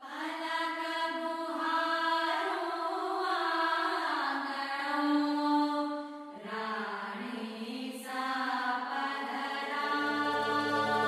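Recorded Rajasthani folk-style song opening with a solo voice singing a slow, unaccompanied line of long held, gliding notes. A low steady drone joins about ten seconds in.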